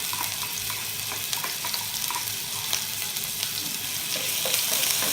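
Ginger-garlic sizzling in hot oil in a pan, a steady frying hiss with light clicks of a spoon stirring, growing a little louder near the end.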